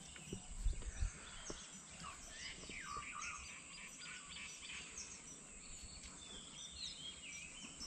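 Many birds chirping and calling at once, short overlapping whistles and chirps, some sliding down in pitch and some up. A few soft low bumps come in the first second and a half.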